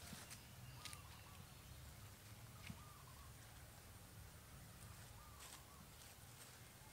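Near silence: faint outdoor ambience with a low hum, a few soft clicks and some faint short chirps.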